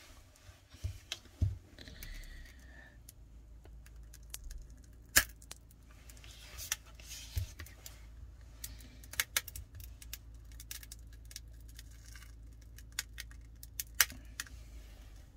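Plastic opening pick worked into the seam between a Samsung Galaxy S10+'s back cover and frame to break the adhesive: irregular sharp clicks, ticks and scraping, the loudest about five seconds in and again near the end, over a low steady hum.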